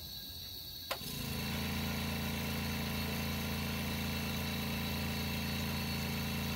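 A sharp click about a second in, then a steady low electrical hum with an even hiss over it, as the ArcJet test-stand equipment switches on and keeps running.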